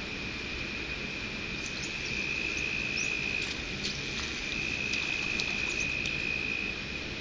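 Steady high-pitched insect song that swells for a few seconds in the middle, with a few short bird chirps, over a low rush of water from the dam.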